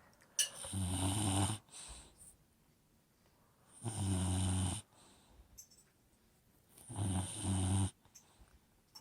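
Old English Bulldog snoring in its sleep: three snores, each about a second long, coming about three seconds apart.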